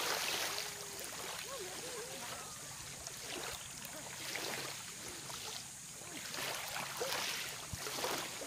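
Small waves lapping on a shallow sandy shore, the wash swelling and falling every second or two.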